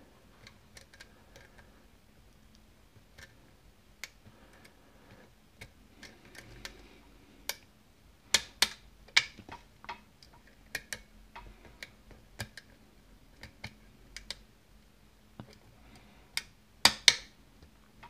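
Small, irregular metallic clicks and ticks of a lock pick working the pins of a Yale pin-tumbler cylinder under tension. A quicker cluster of sharper clicks starts about eight seconds in, and there are two more near the end.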